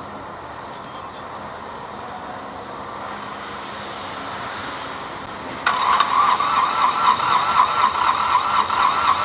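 Starter motor cranking a hard-starting Kubota D905 three-cylinder diesel. It comes in suddenly about five and a half seconds in and pulses evenly as it turns the engine over, without the engine catching.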